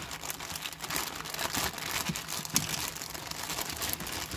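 Clear plastic packaging bag crinkling and rustling as hands open it and handle the spark plug wires inside, a steady run of small crackles.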